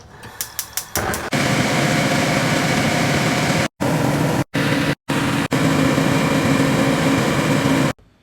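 About half a dozen rapid clicks, like a gas stove's igniter, then a loud steady rushing hum with a low drone, cut off abruptly a few times and stopping sharply near the end.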